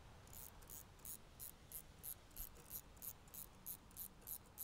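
Faint, rhythmic metal scraping, about three strokes a second: a nut being run by hand onto the threaded end of a steel control rod.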